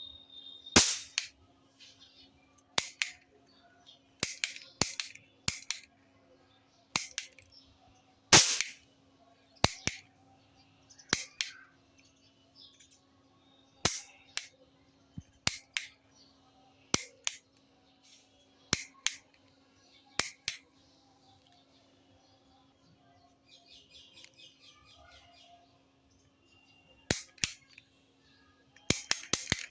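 Toy roll cap gun firing paper caps: sharp pops, singly and in quick pairs a second or two apart. About twenty-four seconds in comes a short run of faint rapid ticks, and near the end a fast string of shots.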